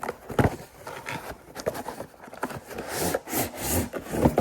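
Torque wrench packaging being handled: a few knocks with rubbing and scraping between, as the cardboard box and the wrench's case are moved about and opened.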